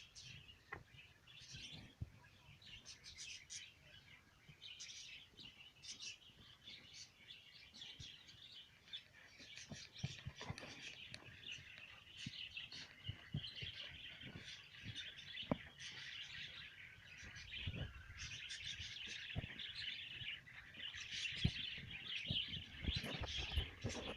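A flock of small aviary birds chirping and twittering, many short calls overlapping, growing busier about halfway through, with a few soft knocks.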